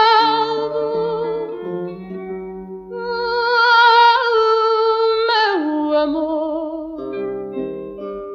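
Fado song: a singer holds long melismatic notes with wide vibrato over plucked guitar accompaniment, the voice sliding down about five seconds in.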